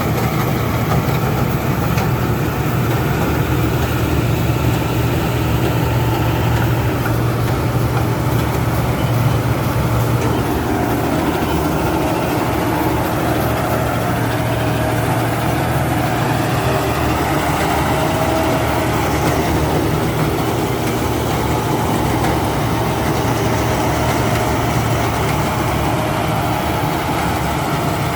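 Rice combine harvester running steadily, a constant heavy engine drone with a faint whine from the machinery.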